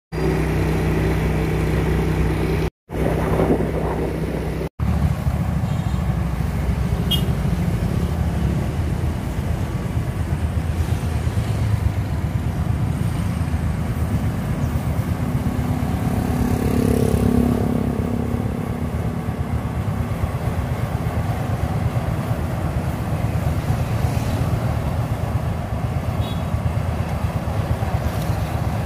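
Rice combine harvester's diesel engine and threshing machinery running steadily in a paddy field. The first few seconds hold a different engine with a steady tone, cut off twice briefly before the harvester's continuous rumble takes over.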